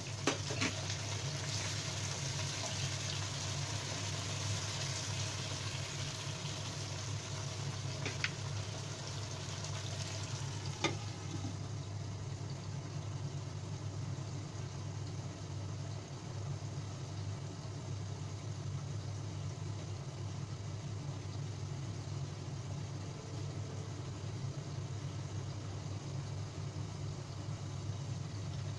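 Chicken, potatoes and onion sizzling in a soy-sauce braise in a nonstick wok, over a steady low hum. There is a clink about eleven seconds in as the glass lid goes on, and after it the sizzling is more muffled.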